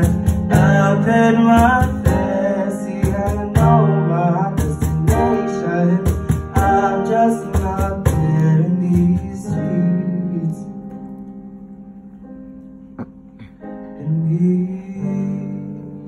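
Live acoustic band music: Kawai piano chords with cajon beats under wordless vocal runs. About ten seconds in it thins out and fades to held piano notes, with a single hit and a short swell near the end.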